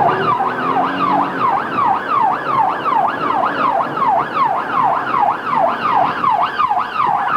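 Police car siren in a fast up-and-down yelp, about three sweeps a second, switched on to signal a driver to pull over.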